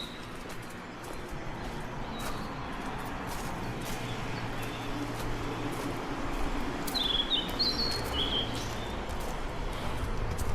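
Steady rushing of a stream of running water, growing a little louder, with a bird giving a few quick chirps about seven seconds in.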